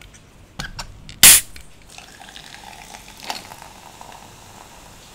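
A Coca-Cola can is cracked open about a second in with a sharp pop and hiss, after a couple of small clicks from the tab. Then the cola is poured into a glass of ice and fizzes steadily.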